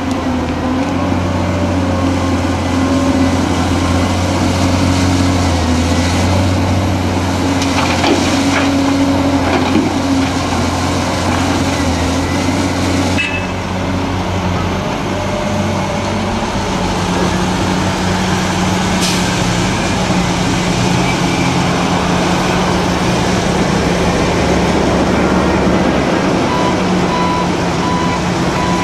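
Heavy diesel engines of a Caterpillar excavator and haul truck running, the engine note shifting about halfway through, with a few knocks. A truck's reversing alarm beeps steadily near the end.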